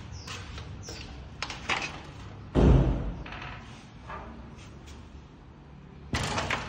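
Metal mesh security door being handled: a few clicks of the latch, then a hard bang about two and a half seconds in as the door swings or slides to its stop. A shorter metallic clatter follows near the end as the door is handled again.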